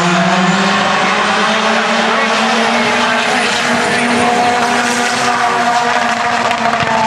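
Two dragsters racing side by side down the drag strip at full throttle. It is a loud, steady engine note that holds its pitch through the run.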